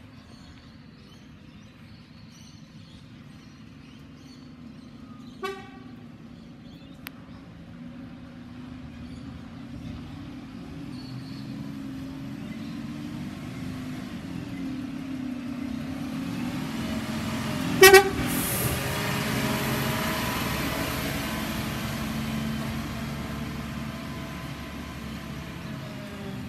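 Side-loading garbage truck with a Bucher body approaching, its diesel engine growing steadily louder as it nears. One short, loud horn toot comes about two-thirds of the way through.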